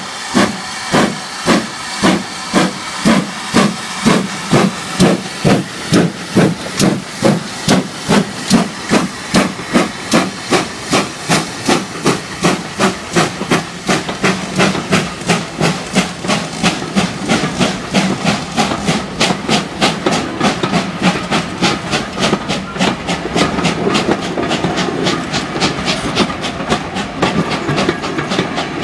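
GWR Manor class 4-6-0 steam locomotive No. 7812 working a train away: sharp exhaust chuffs, about two a second at first, quickening steadily to around four a second. In the last several seconds the beats soften into the running rumble and clatter of coaches rolling past.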